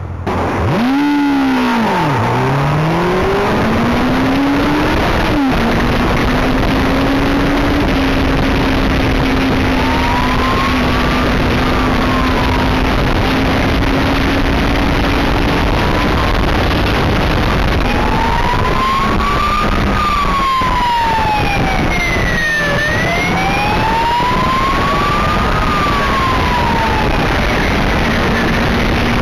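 Police motorcycle accelerating hard, its engine note climbing in the first few seconds, then running steadily at speed under heavy wind rush. From about ten seconds in its siren wails up and down in slow sweeps.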